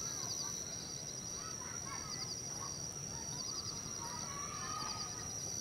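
Outdoor wildlife ambience: a steady high-pitched whine with short bursts of rapid, repeated chirping about once a second, and birds calling now and then beneath it, most around two and four to five seconds in.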